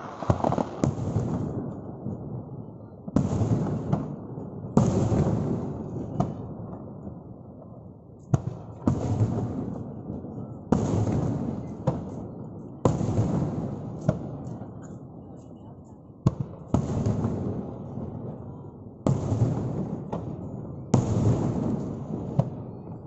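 Aerial fireworks shells bursting one after another, a sharp bang about every two seconds, each followed by a rumble that fades away.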